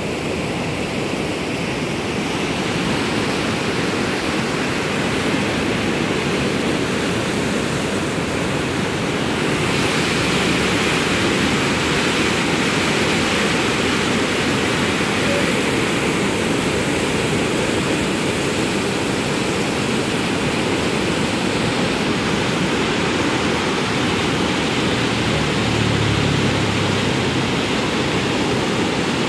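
A swollen, muddy river in flood after an hour of heavy rain, its water rushing in a steady, dense noise that grows a little louder about ten seconds in.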